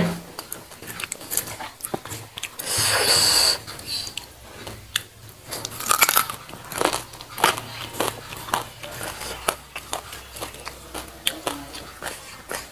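Close-miked crunching bites and chewing of raw papaya leaf stalks, with sharp crunches coming in clusters and the loudest crunching burst about three seconds in.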